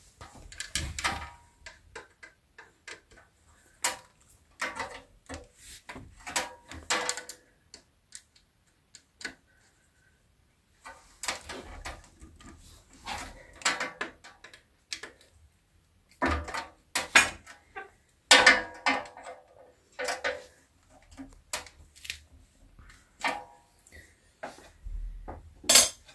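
Irregular clicks, knocks and rattles of metal parts and hand tools being handled and fastened as an industrial sewing machine's clutch motor is put back together, with a quiet gap of a few seconds about eight seconds in.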